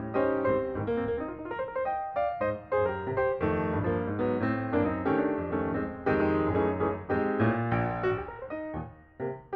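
Background piano music: a gentle melody of struck notes over a bass line, with a brief pause near the end.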